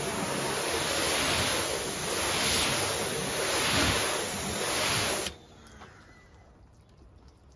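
Pressure washer spraying a jet of water onto a car bonnet: a loud, steady hissing spray that cuts off suddenly about five seconds in.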